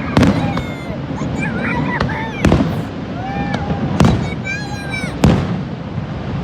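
Aerial fireworks exploding: four sharp bangs roughly a second and a half apart, over a continuous rumble of further bursts.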